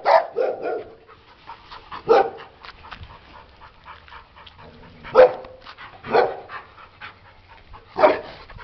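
A dog barking: about six single barks spread irregularly, with gaps of one to three seconds between them.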